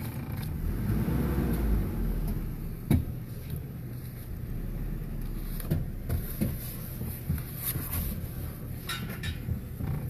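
Vehicle running, heard from inside its cab: a steady low engine rumble with a few sharp knocks and creaks from the body.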